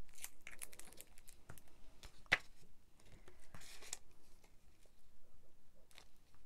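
Paper and card handled on a craft mat: light rustling and small taps as a patterned paper panel is laid onto a card base and pressed flat by hand, with one sharper tap about two seconds in.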